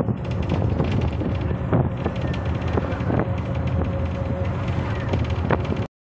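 Ride inside a moving bus: the engine runs with rushing wind and frequent knocks and rattles from the body. The sound cuts off suddenly near the end.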